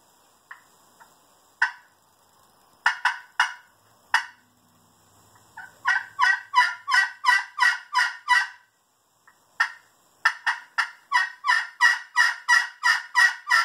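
Glass-over-glass turkey pot call in a padauk pot, played with a snakewood striker. A few single clucks and yelps come first. Then two long runs of yelps imitating a hen turkey follow, each about a dozen notes at an even pace, with a short pause between them.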